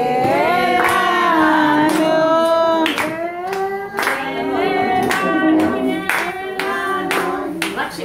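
Voices singing a song together, with hand clapping in time about once a second.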